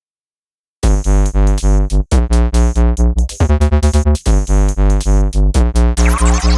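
Loud electronic music with a heavy, pulsing synthesizer bass beat, starting abruptly about a second in.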